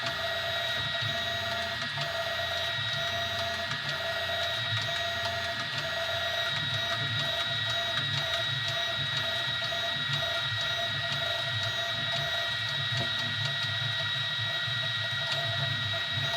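Easythreed X2 desktop 3D printer running a print: its stepper motors whine at steady high pitches while a low, choppy buzz shifts with each short move of the print head.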